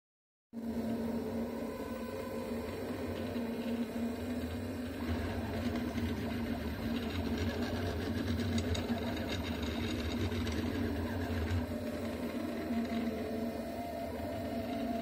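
Delta 3D printer printing: its stepper motors whir continuously as the print head travels, over a steady hum. The sound starts abruptly about half a second in.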